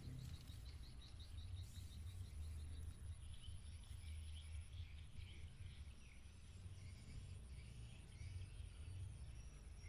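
Faint outdoor pond-side ambience: small birds chirping, with a quick run of short chirps in the first few seconds, over a low steady rumble and a thin high steady tone.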